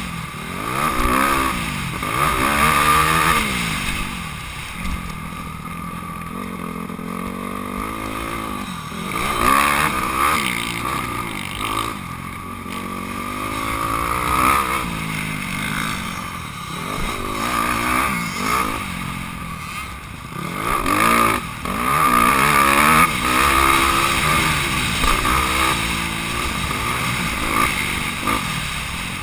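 Honda CRF250R single-cylinder four-stroke motocross engine heard on board, revving up and falling off again and again as the throttle is opened and closed every second or two around the track.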